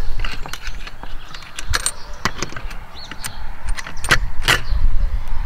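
Small metal hardware (T-bolts, nuts and washers) clicking and clinking as it is handled and fitted onto a kayak track mount: a scattered string of light metallic clicks, two sharper ones a little after four seconds. A low rumble runs underneath.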